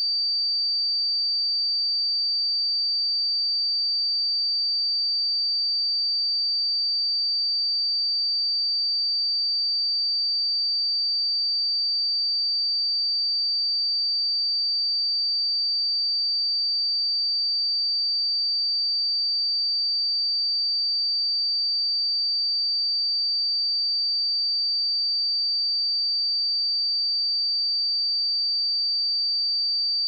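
A steady, pure 4635 Hz sine-wave test tone: a single high-pitched whistle held at constant pitch and level.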